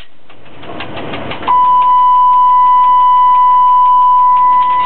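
A loud, steady, high-pitched beep-like tone in a locomotive cab. It starts about a second and a half in and holds at one pitch for about three and a half seconds, over the lower rumble of the cab.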